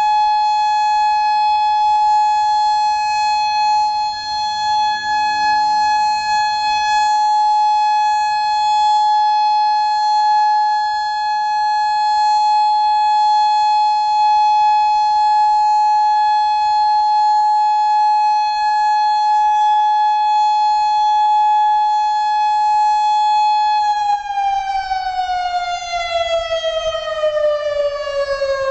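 Federal Signal Modulator 6024 electronic outdoor warning siren sounding a loud, steady alert tone. About 24 seconds in, its pitch begins to slide steadily down as the tone winds down.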